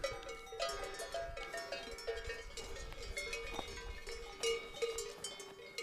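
Cowbells on a herd of cows clanking irregularly, several bells of different pitches ringing and overlapping.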